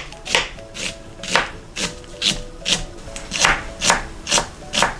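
Chef's knife thinly slicing an onion on a plastic cutting board: a steady run of cuts, about two a second, each stroke going through the onion and ending on the board.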